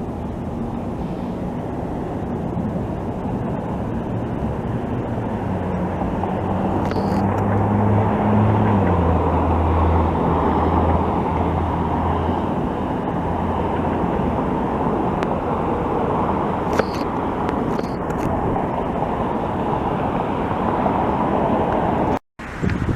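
Steady traffic and wind noise that swells toward the middle, with a low engine hum that drops in pitch about eight to nine seconds in as a vehicle passes; the sound cuts out abruptly near the end.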